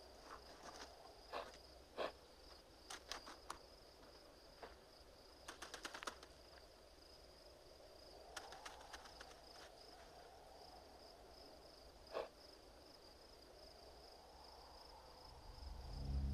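Dry animal bones knocking and clattering as they are handled, in single knocks and quick rattling clusters, over a faint steady high chirring of insects. Near the end a low sustained musical note swells in.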